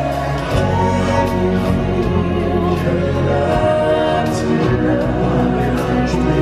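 Stage-show music: a choir of voices singing over an accompaniment, with sharp percussion strikes throughout.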